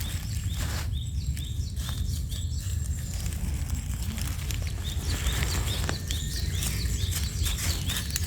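A bird chirping over and over, short calls about two a second in two runs with a pause between. Under it runs a steady low rumble, with a few scattered clicks.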